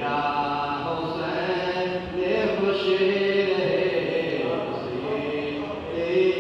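A voice chanting a noha, a Shia mourning lament, in long held melodic phrases with brief breaks between them.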